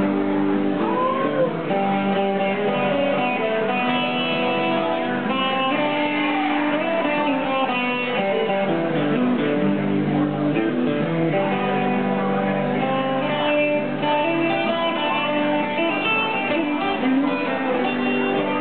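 Live band playing a song, with electric and acoustic guitars.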